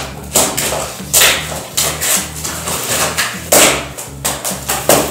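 Scissors snipping through thick plastic wrap on a boxed mattress, the plastic crinkling. There is a sharp snip or crackle about every half second to second.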